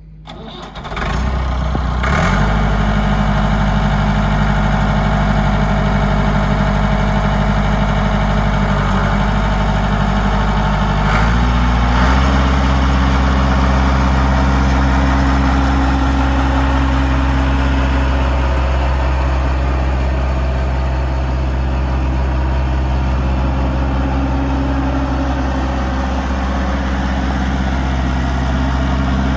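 Massey Ferguson 275 tractor's Perkins four-cylinder diesel engine running steadily as the tractor is driven. About a third of the way in, the engine speed steps up and then holds at the higher, louder pitch.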